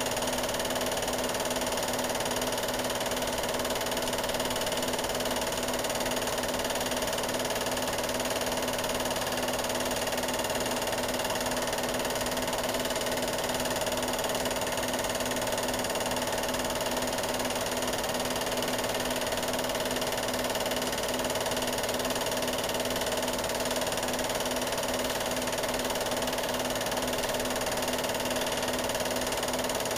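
Steady machine whir and hum with several fixed tones, unchanging throughout, with no other sound on top.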